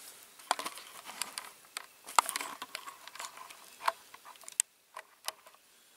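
Scattered light clicks and rustles of a small diecast model car being handled and turned in the fingers, with the sharpest click about two seconds in.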